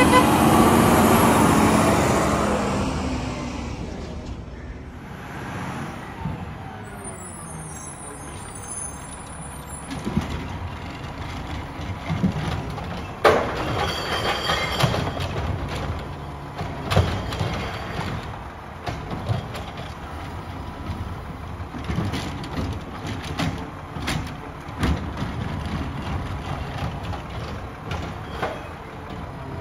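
Mack MRU refuse truck with a McNeilus ZR automated side loader: a loud air hiss near the start, then the engine running while the hydraulic arm lifts and tips recycling carts into the hopper, with scattered knocks as the carts hit home.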